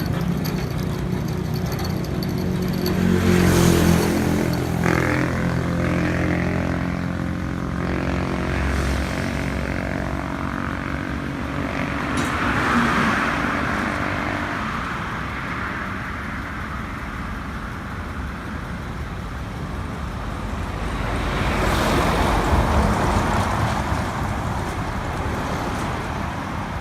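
Motor vehicle engine running steadily, its pitch shifting a little in the first several seconds, with road noise swelling up and fading three times as traffic passes.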